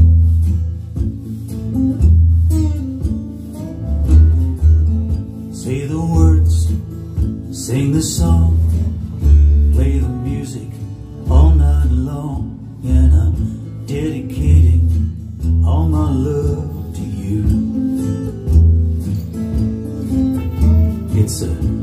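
A recorded song's guitar intro, with a deep, prominent bass line, played back through an Alto TS-series powered PA speaker for a sound test.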